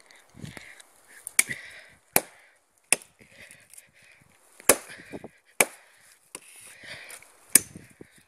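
A wooden pole being chopped with a hand-held blade: about six sharp, loud strikes at uneven intervals, with fainter knocks and splintering between them.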